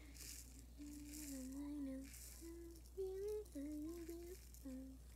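A girl humming a slow, wandering tune in held, stepping notes, with a faint rattle of small slime add-ins being poured from a plastic cup.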